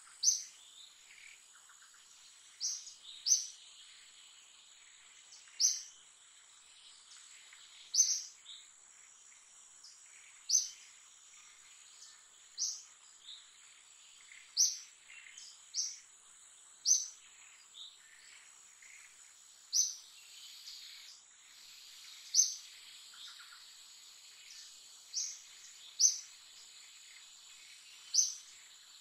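A small bird gives a short, high chirp about every two seconds over a steady, high-pitched insect drone in the forest.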